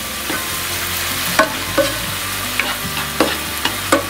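Chopped morels sizzling in a non-stick frying pan, stirred with a spatula that clicks against the pan several times.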